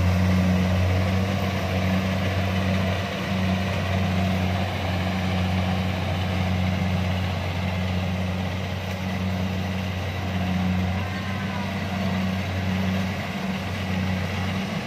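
Kubota DC-70 rice combine harvester's diesel engine running steadily under load while cutting rice, a constant low hum.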